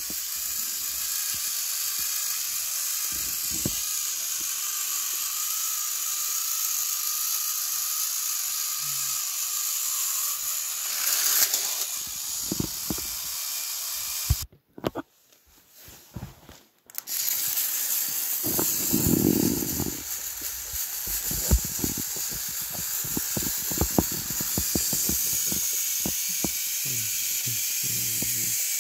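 A steady hiss that drops out for a couple of seconds past the halfway point. After it returns, many light clicks and knocks are scattered through it.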